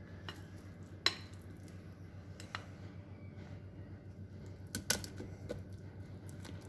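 A spoon clinking and knocking against a glass mixing bowl a few times as thick fruit cake batter is scooped out into a lined cake tin, with the sharpest clink about a second in and a small cluster near the five-second mark, over a low steady hum.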